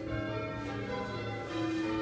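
Church bells change ringing in a quarter peal: the bells strike one after another in quick succession, each note ringing on under the next.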